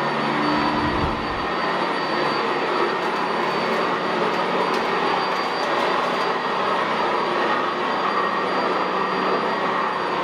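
Sanitaire SC679J commercial upright vacuum running steadily as it is pushed over carpet: a constant rush of air with a steady high whine on top, and a brief low thud about a second in.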